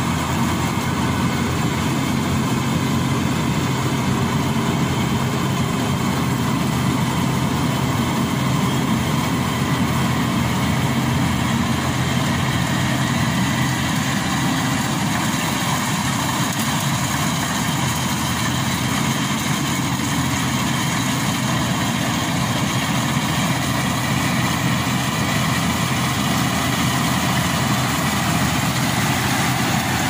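GreenStar combine harvester running steadily while it cuts standing rice: a constant engine and machinery drone.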